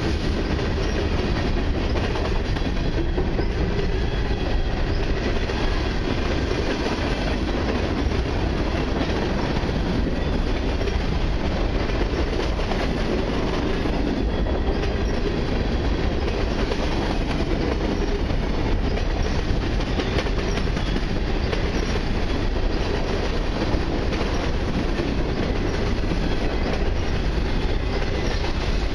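Freight cars, mostly covered hoppers, rolling past at trackside: a steady rumble of steel wheels on the rails with faint clicking over the rail joints.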